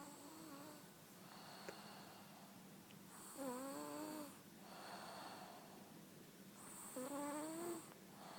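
Snoring: three pitched, wheezy snores about three and a half seconds apart, with softer breathy noise between them.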